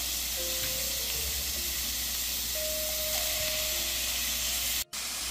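Ground beef and freshly added diced onion sizzling steadily in hot oil in a frying pan.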